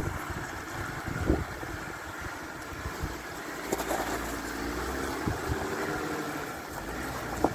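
Jeep Wrangler Rubicon engine running steadily at low revs as the 4x4 crawls over sandstone rock, with a couple of short knocks from the vehicle working over the rocks.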